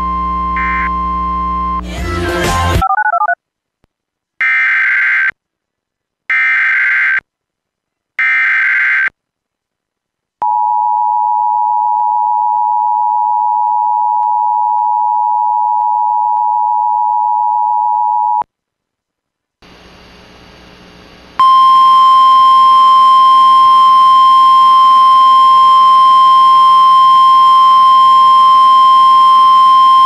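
Emergency Alert System tone sequence. After a brief electronic tone pattern, three one-second bursts of SAME digital header data sound about a second apart. Then the two-tone attention signal holds steady for about eight seconds, and after a short pause with faint hiss, a single steady alert tone just above 1 kHz sounds for about nine seconds.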